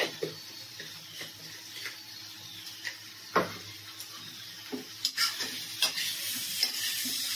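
Metal spatula scraping and knocking against a steel kadhai while a spiced potato and pea mixture fries and sizzles in oil. A loud knock comes about three and a half seconds in, and the sizzle and scraping grow louder and busier about five seconds in.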